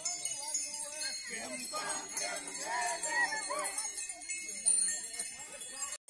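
Continuous high jingling of many small bells, with several people's voices rising and falling over it, loudest about a second to three and a half seconds in. The sound cuts off briefly near the end.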